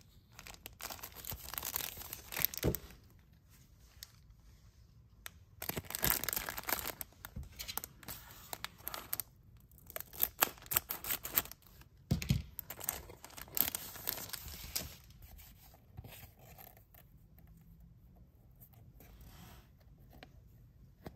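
Clear plastic packaging crinkling and tearing as it is opened, with scissors cutting through the plastic. It comes in several bursts over roughly the first fifteen seconds, then only light rustling.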